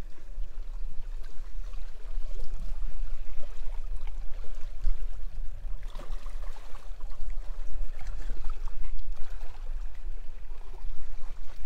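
Lake water lapping and splashing against shoreline rocks, with wind rumbling on the microphone.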